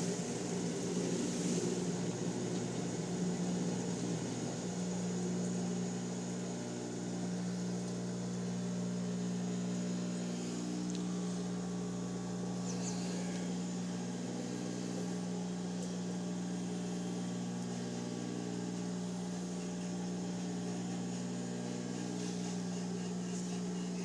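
Hobart commercial dishwasher in power-down mode draining its tank: a steady motor hum from the machine, with water running out through the drain hose.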